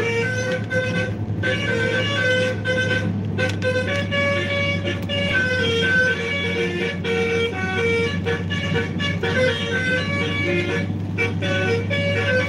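Basuri telolet horn playing a running tune of short stepped notes, one after another with no break, over a steady low hum.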